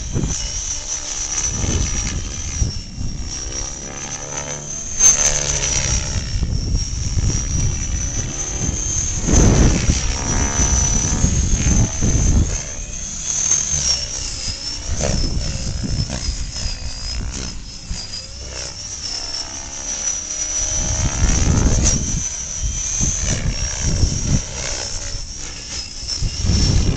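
Electric 600-size radio-controlled helicopter in flight: a continuous high whine from the motor and drive that wavers a little in pitch, over a rushing rotor noise that swells and fades several times as it manoeuvres.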